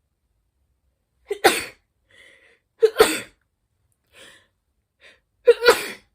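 A person sneezing three times in a row, about a second and a half apart; each sneeze is a short catching intake followed by a sharp burst. Faint short breaths come between them. The sneezes are set off by tickling the inside of the nose with a twisted paper string (kohyori).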